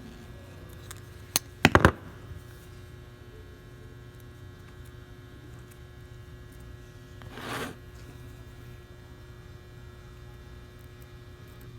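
Steady electrical hum, broken about a second and a half in by a sharp click and then a quick cluster of loud knocks, with a short soft rush of noise a little past the middle.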